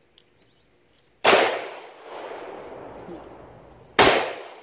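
Two 9mm semi-automatic pistol shots, about 1.2 s and 4 s in, each sharp crack followed by a long fading tail.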